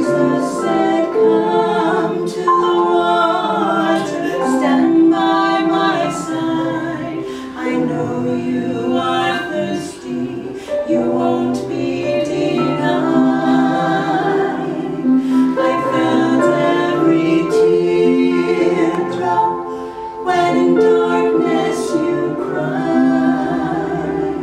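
Two women singing a Christian song together, their voices carrying long held phrases with brief breaths between lines.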